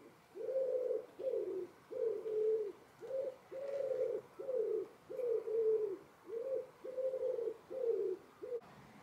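A pigeon cooing: a series of about a dozen low coos in phrases, each note falling in pitch, ending with a short clipped note.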